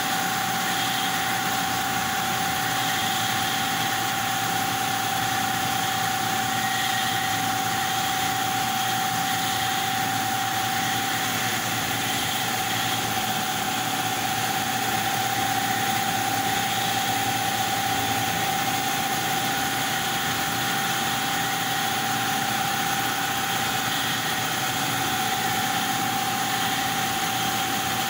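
Yuan Tong CNC laser cutting machine running steadily while it cuts a sheet: a constant machine hum and hiss with a steady high whine.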